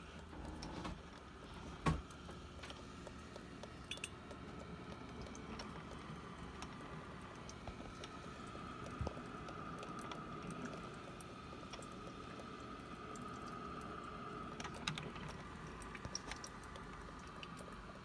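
Black & Decker Spacemaker drip coffee maker brewing: faint liquid gurgling and hiss of water heating and running through into the carafe. A sharp click about two seconds in.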